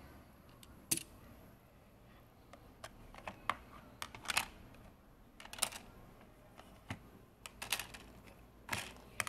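Hard plastic clicking and clattering as Lego bricks and the hinged dividers of a plastic storage case are handled: about a dozen irregular taps and short rattles, the loudest about a second in and near the end.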